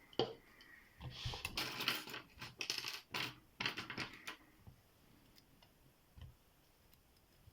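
Small metal clinks, clicks and rattles as lockpicking tools and a small padlock are handled, busiest in the first half and then dying down to a few faint ticks.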